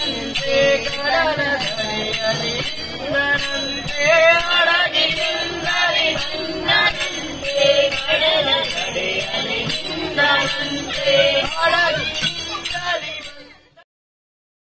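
Group bhajan singing, a woman's voice leading a devotional song over small hand cymbals (taal) struck in a steady beat about twice a second. The music fades out to silence near the end.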